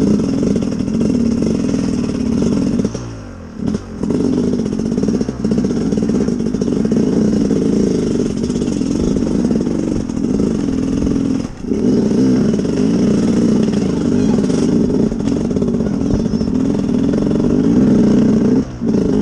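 Sherco SE-R 300 two-stroke enduro motorcycle engine under way, its revs rising and falling as the throttle is worked, with brief drops where the throttle is shut off about three seconds in, in the middle and near the end.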